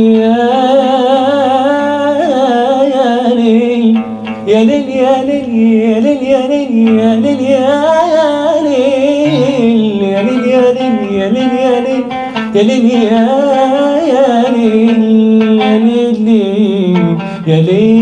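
A man singing a slow Arabic song into a microphone, holding long notes that bend and waver with ornaments, over instrumental accompaniment. His voice is one he himself says is hoarse.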